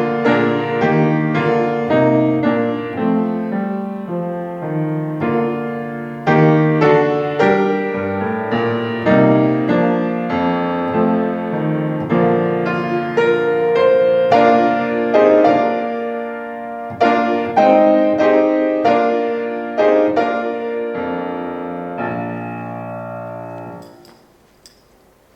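Piano playing a slow succession of chords and melody notes, each struck and left to ring. It ends on a held chord that stops about a second and a half before the end.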